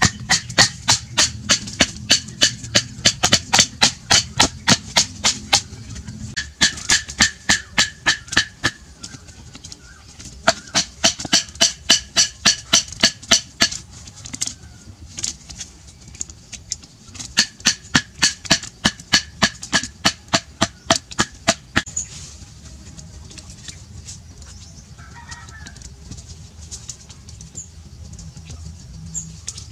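Rapid, regular knocking of a blade or stick striking wooden poles, about four knocks a second in runs of a few seconds with short pauses. It stops about 22 seconds in, leaving faint forest background.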